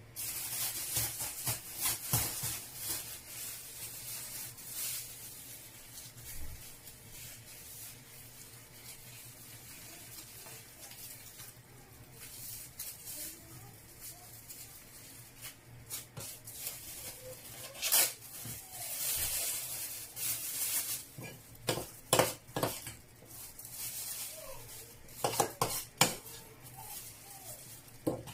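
Cutlery and dishes clinking and knocking at irregular intervals, over a rustling hiss.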